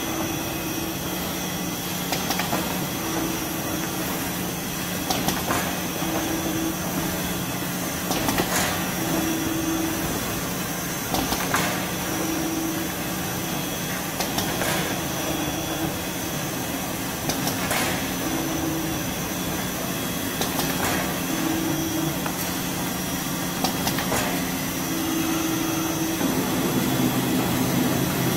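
Automatic band-saw toilet-roll cutting machine running with a steady hum. A click and a short tone repeat about every three seconds as it cycles through its cuts.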